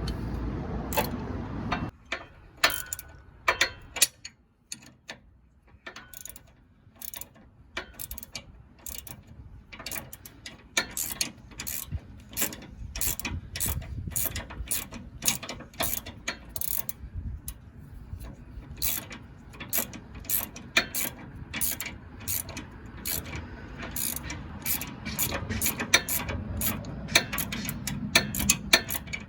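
Hand ratchet wrench clicking in quick irregular runs as the nylock nuts are tightened onto a sway bar quick-disconnect's mounting posts. There is a low rumble for the first couple of seconds.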